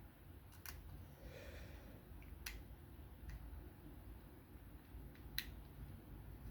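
Three faint, sharp clicks spread over a few seconds from small metal parts being handled while a folding knife's body screws are snugged with a T8 driver. Quiet room tone underneath.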